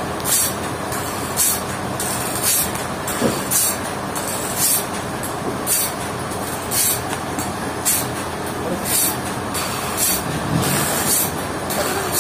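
Sawmill machinery running steadily, with a short hiss recurring about once a second.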